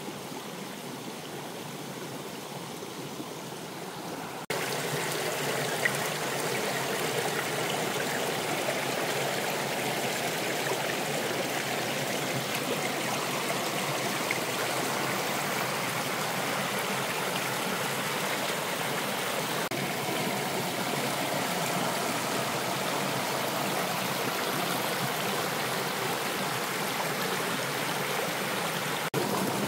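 Water of a small stream running, a steady rushing sound that jumps louder about four and a half seconds in.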